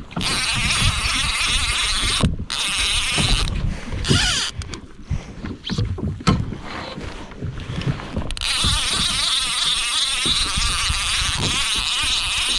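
Steady rushing water and wind noise on a fishing kayak at sea. The noise drops away briefly, and from about four to eight seconds in a run of short knocks and splashes takes its place before the rush returns.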